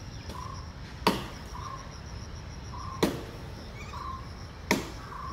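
Axe chopping wood: three sharp strikes, one about every second and a half to two seconds, each with a short ringing tail, and faint short chirps between them.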